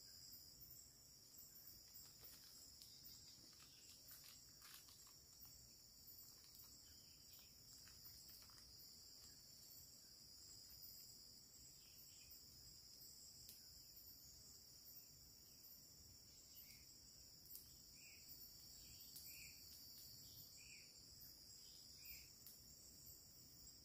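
Faint, steady, high-pitched chorus of forest insects such as crickets, with a few short chirps in the second half.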